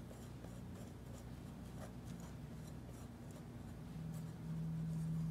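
Wire whisk stirring flour and warm milk in a glass mixing bowl: soft, irregular scraping strokes against the bowl. Under it is a low steady hum that grows louder about four seconds in.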